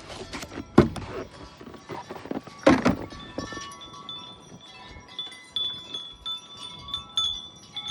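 Wind chimes ringing in gusting wind, several clear tones struck again and again. Two loud knocks come about one and three seconds in.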